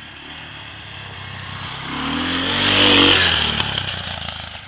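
Kawasaki ATV engine revving up under load, rising in pitch and loudest about three seconds in, then easing off. Near the peak there is a burst of scraping and crackling, typical of brush and small trees being pushed over.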